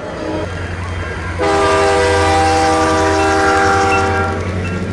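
Multi-chime train horn: a brief toot, then a long, loud blast of about three seconds starting about a second and a half in, sounding several pitches at once as a chord. A steady low rumble runs underneath.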